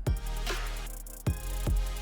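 Background music: an electronic beat with a heavy bass drum and bass.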